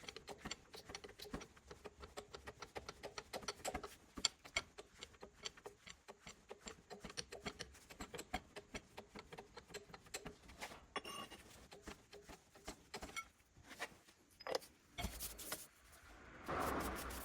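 Rapid, even clicking, about four to five clicks a second, from a car wheel being turned: the abnormal noise the wheel makes as it rotates.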